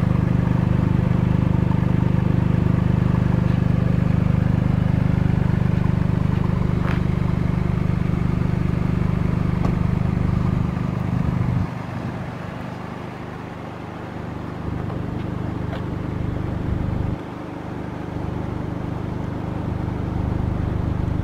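Toyota GR Yaris's 1.6-litre turbocharged three-cylinder engine idling with a steady low hum. About halfway through it drops sharply in level, then steps up and down a few times.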